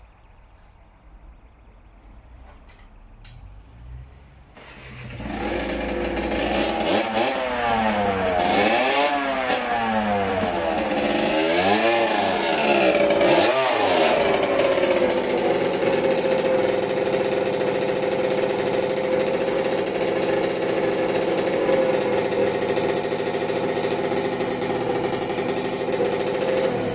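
90cc two-stroke dirt bike engine coming in about five seconds in, revving up and down several times as the bike is ridden in, then settling to a steady idle. It bogs out under throttle, which the owner thinks a carb clean will sort out.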